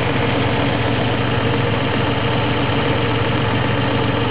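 Chevrolet Corvair's air-cooled flat-six engine idling steadily, its distributor vacuum advance line plugged for a timing check.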